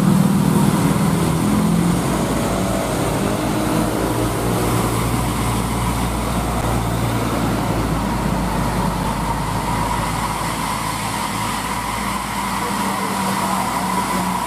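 Heavy diesel trucks and a bus driving past on a steep wet road, engines droning, with tyre hiss on the wet asphalt. The nearest truck's engine is loudest at the start and fades, and a thin high whine comes in during the second half as the bus draws near.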